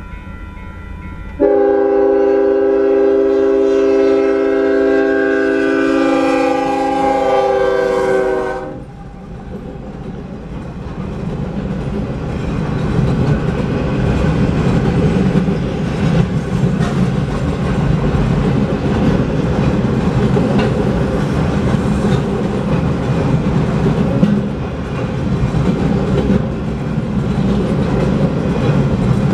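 Union Pacific GE AC45CCTE locomotive's horn sounding one long chord of about seven seconds, then cutting off, followed by the train rolling through the grade crossing: a steady rumble of wheels on rail with clickety-clack from the cars, building up and staying loud.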